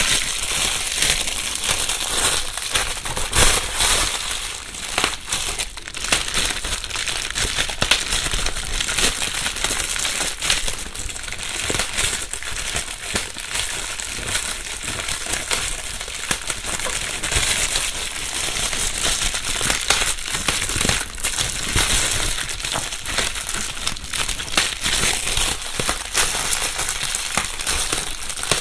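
Plastic bubble wrap being crumpled and rustled close to binaural microphones, a steady stream of crinkling with many small sharp crackles and pops.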